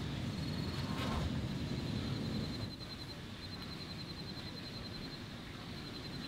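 Night ambience: an insect, cricket-like, trilling steadily in a high, fast pulse, over a low rumble that drops away about two and a half seconds in.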